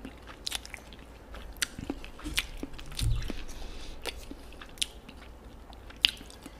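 Close-miked chewing of a mouthful of kimchi: many sharp, wet mouth clicks and crunches, with a soft low thump about three seconds in.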